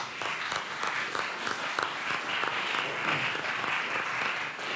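Audience applause: many people clapping together in a hall, a dense steady patter that swells at the start and begins to thin out near the end.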